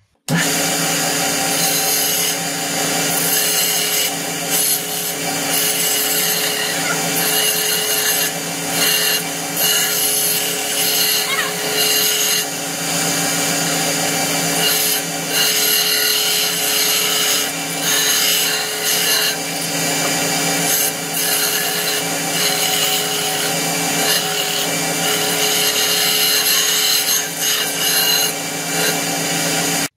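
Belt grinder running, its sanding belt grinding a knife's white handle pressed against it: a steady motor hum under a rasping hiss that dips briefly now and then as the handle is shifted. It starts abruptly just after the beginning and cuts off at the end.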